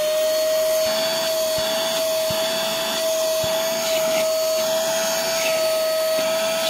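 Tamashio 7.4 V cordless handheld mini vacuum cleaner running at full speed: a steady high-pitched motor whine over a rush of air.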